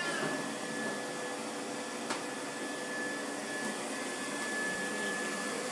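Vacuum cleaner running steadily with a constant whine. A cat meows once right at the start, and there is a single click about two seconds in.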